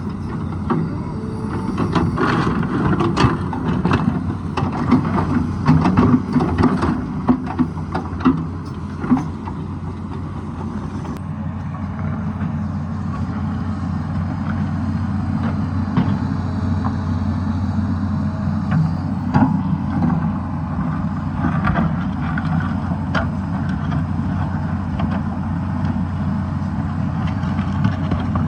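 Tata Hitachi hydraulic excavator's diesel engine running steadily under load, with frequent knocks and clatter of rock and soil against the bucket during the first ten seconds or so. After that the engine runs on more evenly, with only occasional knocks.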